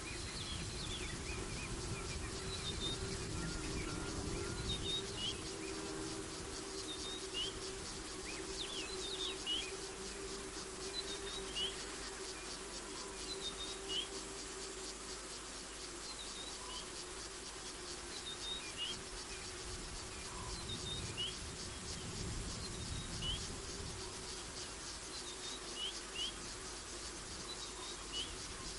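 Evening insect chorus: a steady, fast, high chirring of crickets, with short high chirps every second or two and a faint steady low hum beneath.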